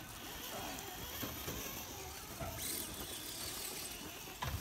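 A scale RC rock crawler's electric motor and gears whirring as it crawls over rusted metal and pine needles, with one sharp knock near the end.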